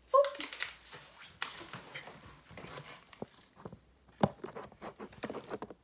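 Handling noise from a camera that has toppled over and is being picked up: a sharp knock at the start, then rubbing, scuffing and scattered knocks against the microphone, with a loud knock about four seconds in.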